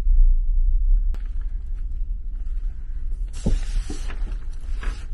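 Rustling of a fabric bag and two soft thumps as it is pushed onto a small wall shelf about three seconds in, with a single click about a second in. A steady low rumble from the ship runs underneath.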